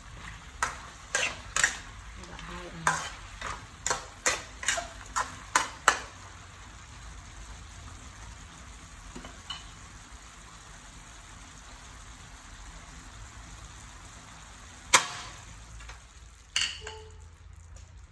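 Metal spatula scraping and knocking against a metal wok in about a dozen quick strokes, stir-frying beef and vegetables over a sizzle. After about six seconds the stirring stops and the steady frying sizzle carries on, broken by one sharp knock about fifteen seconds in and a lighter one just after.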